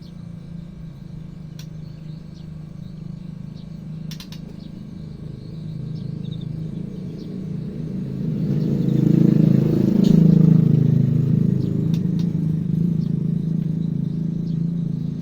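A motor vehicle's engine running close by. It grows louder to a peak about ten seconds in, then eases off a little, with faint bird chirps above it.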